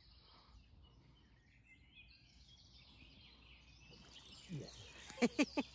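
Quiet riverside outdoor ambience with faint bird chirps. Near the end, a man gives a few short, loud exclamations.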